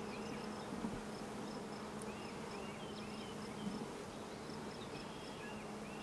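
Honeybees buzzing on an open comb frame: a steady, even hum from many workers, with faint repeated high chirps over it.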